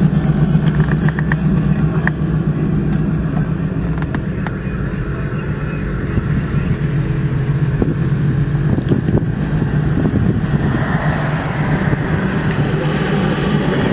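Pickup trucks driving slowly past one after another, their engines and exhausts giving a steady low rumble.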